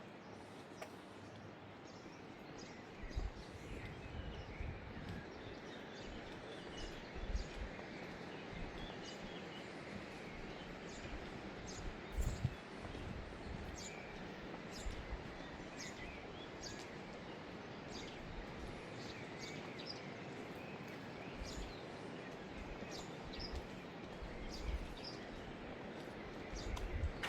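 Outdoor town ambience: a steady background hiss with many short, high bird chirps scattered throughout, and a few irregular low thumps.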